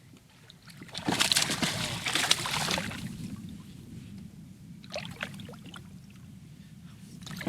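Water splashing and sloshing beside a kayak for about two seconds, starting about a second in, followed by a few faint clicks and small splashes.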